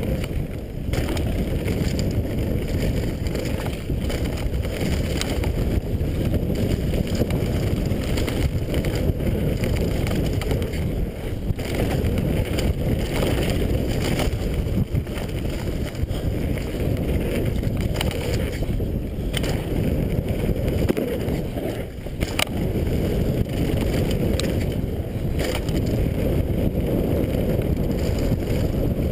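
Wind rushing over the camera's microphone together with the rumble of mountain-bike tyres rolling fast on a dirt and gravel trail, with scattered sharp clicks and knocks from the bike rattling over rough ground.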